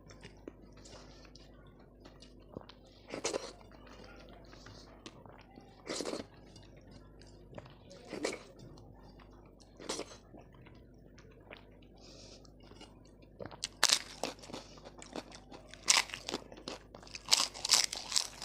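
Close-miked eating: a person chewing and biting food in separate mouthfuls every couple of seconds, then from about thirteen seconds in, a run of loud, crisp crunching bites.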